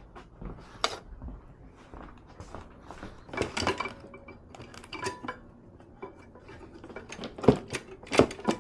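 Tools and small parts being handled and set down, with scattered clinks and knocks and a few sharper knocks near the end.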